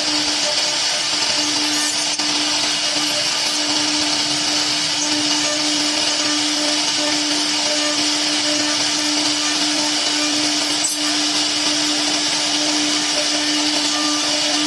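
CNC router's spindle running steadily, a constant whine over a strong even hiss.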